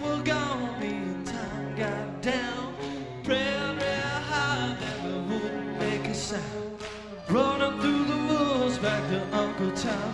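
Live hard rock band playing: a male lead singer holds long, wavering notes into the microphone over electric guitars, bass and drums, with a sliding rise in the voice just past the middle.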